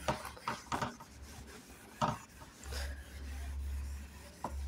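Whiteboard duster rubbing across the board in a series of short wiping strokes as the board is wiped clean.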